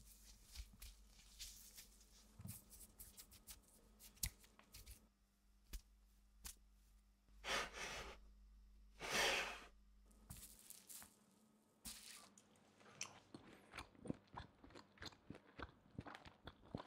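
Quiet clicks and taps of food and a spoon being set on a wooden board, with two short swishing noises a little before halfway, then a person chewing food in the later part.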